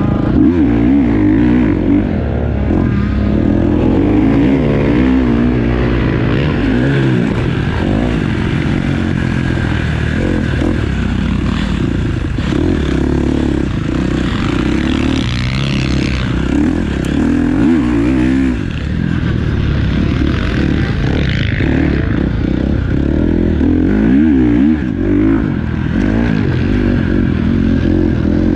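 Motocross bike engine heard on board, revving up and dropping back again and again as the rider works through corners and ruts.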